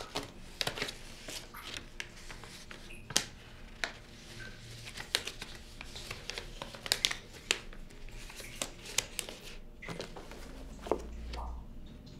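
Paper rustling and crinkling: pages of a thick bound booklet and a loose slip of paper being handled and turned, in short, irregular rustles.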